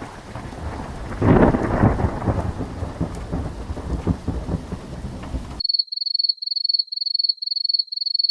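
Thunderstorm sound effect: rain with rolling thunder, a loud crack and rumble about a second in. It cuts off abruptly about two-thirds of the way through and is replaced by a high-pitched electronic beeping, about three beeps a second.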